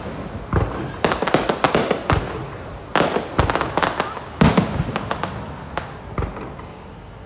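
Fireworks display going off: a rapid run of sharp bangs and crackles. The biggest blasts come about one, three and four and a half seconds in, and the bursts thin out near the end.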